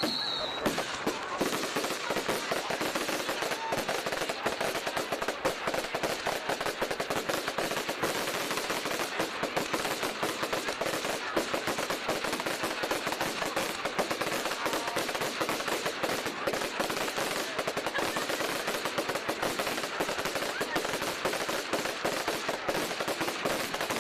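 Fireworks display: a dense, continuous run of rapid crackling bangs, with a falling whistle dying away right at the start.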